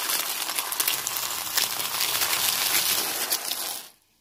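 Crisp fried papad rolls crackling and crunching as a car tyre rolls over them and crushes them, a dense run of fine crackles that cuts off near the end.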